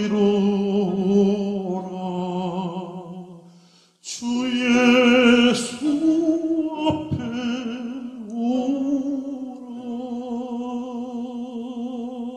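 A tenor singing the last notes of a hymn in an operatic style, holding long notes with a wide vibrato. The sound stops briefly about four seconds in, then a new long note comes in and is held, fading near the end.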